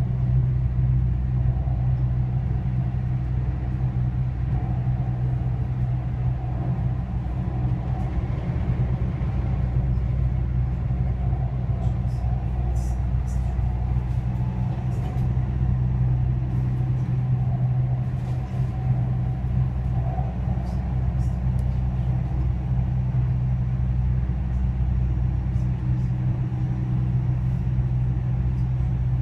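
Dubai Metro driverless train running at speed on elevated track, heard from inside the car: a steady low rumbling hum, with a few faint ticks around the middle.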